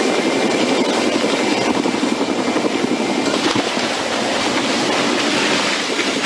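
Large helicopter's rotor and engines at close range: a loud, dense, rapid chopping with rushing noise as it banks over and crashes at low height.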